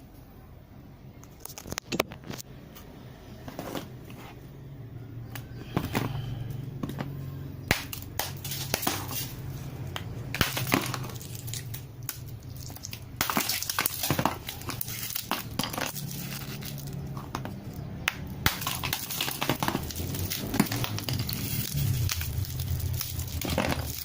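A block of ice being chipped and broken apart with a small hammer and a multitool knife: repeated sharp knocks and cracks with crunching and crackling. It gets busier from about six seconds in.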